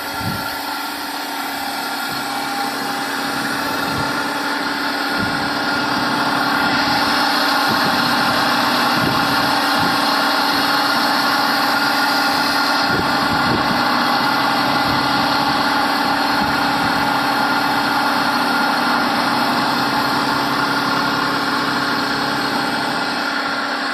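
Industrial Roots blower running steadily: a constant mechanical hum with a steady tone under a dense rushing noise, growing louder over the first several seconds and then holding level.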